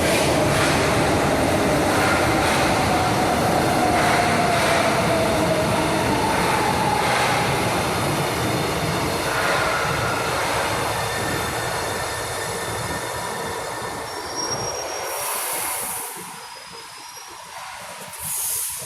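São Paulo Metro Line 2 train running in the station on steel wheels, with thin wheel squeals over the running noise. The noise dies away after about 14 seconds, and two short high hisses follow near the end.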